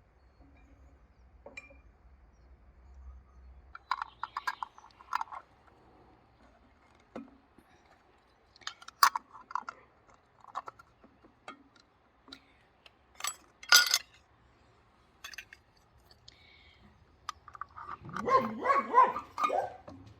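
Scattered short clinks and knocks, then a dog barking near the end.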